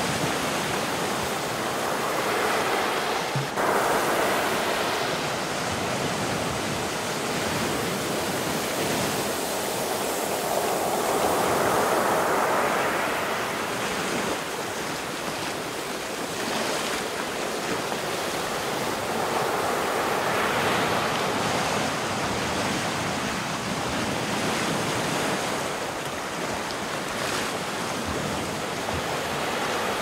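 Ocean surf: waves breaking and washing up a beach in a continuous rush of foam, swelling three times as waves break, about every eight to ten seconds.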